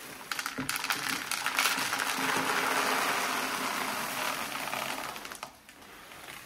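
Dry breakfast cereal poured from a plastic bag into a clear plastic storage canister: a steady rattling rush of many small pieces hitting plastic, building and then tapering off about five seconds in.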